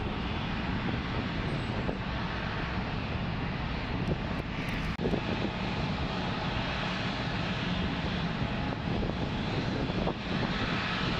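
Boeing 777-300ER's GE90 turbofan engines running at low thrust as the airliner sits or rolls slowly on the runway: a steady jet roar that dips briefly about five seconds in.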